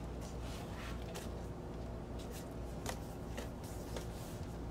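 Cardboard vinyl record jacket and paper insert being handled: light rustling with several small scrapes and taps as the printed insert is pulled out of the gatefold sleeve.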